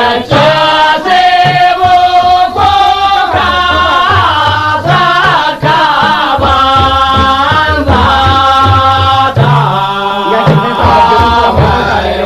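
Hausa song: a voice singing long, wavering held notes in a chant-like melody over low, steady percussion.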